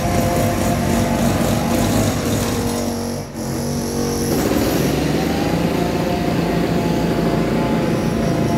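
Steady drone of construction machinery engines running, with a short dip about three seconds in.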